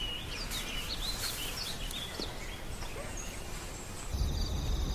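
Outdoor ambience with small birds chirping, short rising and falling calls, for about four seconds; near the end it gives way to a steady low hum with a faint high whine.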